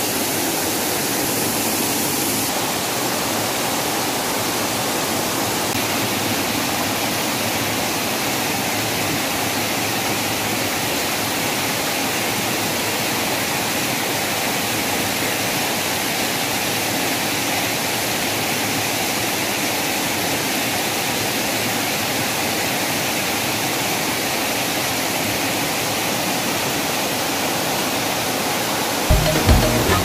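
Steady rush of a small waterfall cascading over rocks. Music with a beat comes in near the end.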